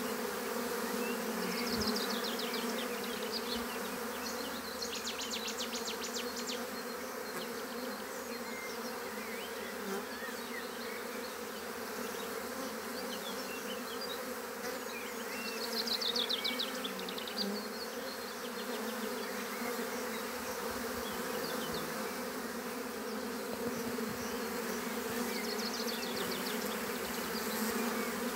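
A swarm of honey bees buzzing, a steady, even hum from the bees clustered and flying around.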